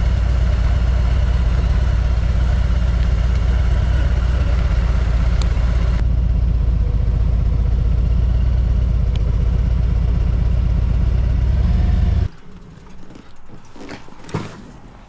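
Harley-Davidson Road King's V-twin engine idling steadily with a low, even beat, loud and close. It cuts off abruptly about twelve seconds in, leaving a few faint clicks and knocks.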